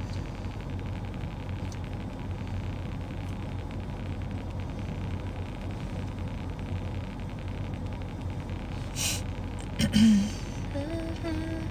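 Steady low rumble of a car's interior while the car sits still. Near the end there is a short hiss, then a few held hummed notes.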